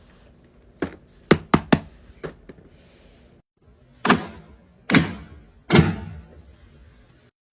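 A handful of sharp taps and clicks, then three heavier thunks, each about a second apart, from small hard objects being knocked or set down.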